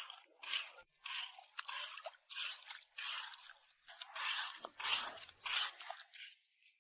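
A hand digging tool scraping through wet beach sand in about a dozen short strokes, roughly two a second, while digging out clams.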